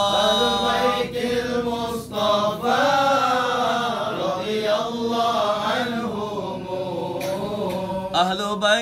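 Male voice chanting an Arabic devotional hymn in long, drawn-out melismatic notes, the pitch bending slowly up and down, with a short break for breath about two seconds in.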